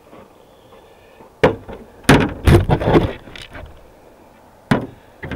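Knocks and bumps of the camera being handled: one sharp knock about a second and a half in, a quick cluster of louder thuds and clatter right after, and another sharp knock near the end.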